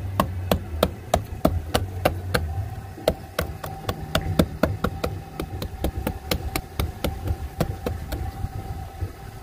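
Hands patting and slapping a flexible silicone stone-texture stamp mat pressed onto fresh cement on a wall, printing the stone pattern: a quick, irregular run of sharp taps, about three or four a second.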